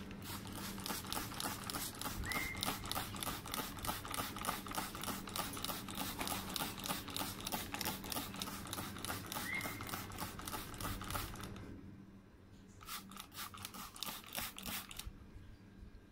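African grey parrot making a long run of rapid, regular clicks, several a second, with two short whistle-like chirps. The clicking breaks off about twelve seconds in, then returns briefly.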